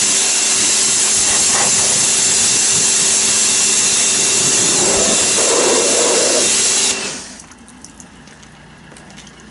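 Kärcher K2 electric pressure washer running, its water jet hissing against a car's alloy wheel and door panel over a steady motor whine. About seven seconds in the trigger is let go, and the spray and the motor cut off suddenly.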